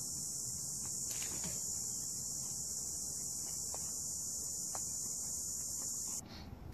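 Steady, high-pitched insect chorus that cuts off suddenly near the end, with a few faint taps.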